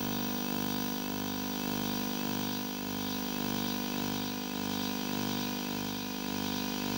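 Analog electronic noise: a steady buzzing drone with a mains-like hum and a hiss on top, cut by a regular low pulse roughly every third of a second.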